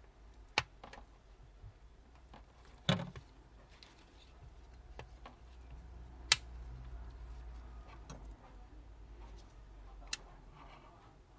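Small tools clicking and tapping against a smartphone's internal parts during disassembly: a handful of separate sharp clicks a few seconds apart, the loudest about six seconds in, over a faint low hum.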